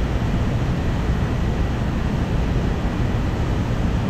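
Steady low rumble of water rushing through a dam spillway, unbroken and even.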